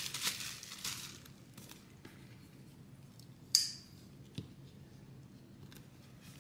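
Bubble wrap crinkling and fading out in the first second, then the handling of a cardboard knife box: a single short scrape about three and a half seconds in and a light tap just after.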